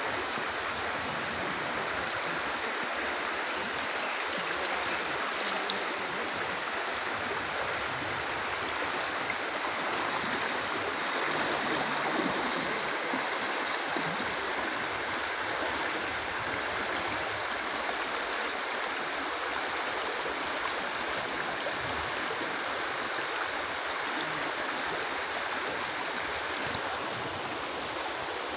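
River water rushing over rocks, a steady, even hiss that does not let up.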